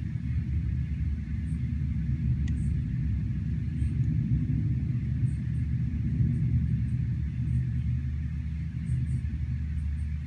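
Low rumble of a rainstorm, swelling a little in the middle and easing near the end, with a faint steady hiss and a few tiny ticks above it.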